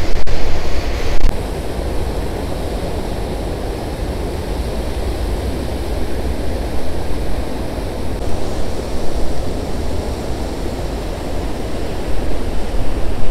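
Water pouring over a low concrete weir and churning white over rocks at its foot: a steady rush of falling water, a little louder for about the first second.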